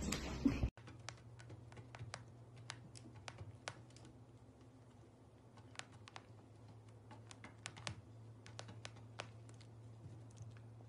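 A brief loud noise that cuts off abruptly under a second in, then sparse, irregular light clicks over a low steady hum as a cat picks at the rim of a wicker cat bed with its teeth and paws.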